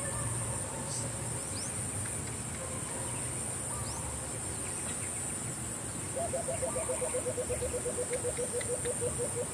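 Steady high-pitched insect drone with a few faint chirps. About six seconds in, a fast run of low repeated notes begins, about five a second.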